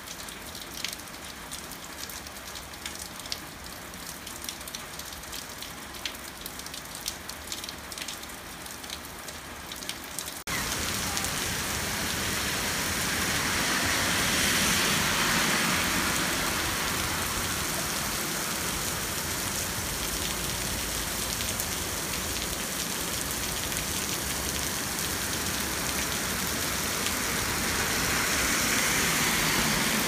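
Heavy typhoon rain. At first there is a steady hiss of rain with sharp pattering drops close by. About a third of the way in it cuts suddenly to a louder downpour pelting a road and pavement, with a low rumble, and it swells and eases twice.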